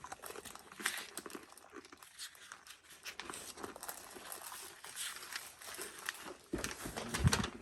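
Pages of a paper manual rustling and being flipped while searching for a diagram, with a few louder knocks and handling thumps near the end.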